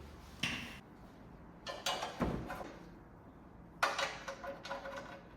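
Metal clanks and knocks from a key cabinet being fitted onto its wall bracket, a few separate knocks with the loudest about four seconds in, followed by a short metallic ring.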